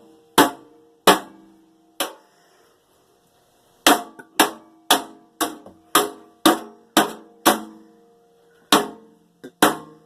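Hammer blows on a microwave oven's metal parts, about a dozen strikes, each ringing briefly with a metallic tone. After three blows there is a pause of about two seconds, then a steady run of about two blows a second.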